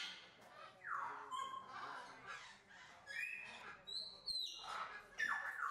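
Blue-winged macaw calling: a string of short chirps and squawks about once a second, several of them sliding down in pitch.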